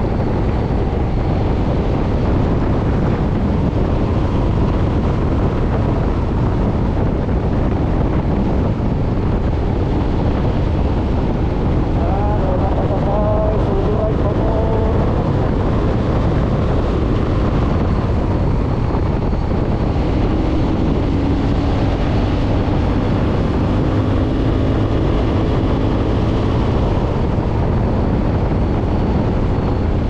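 Steady wind rushing over the microphone, mixed with motorcycle engine and tyre noise, while riding at about 50 to 60 km/h.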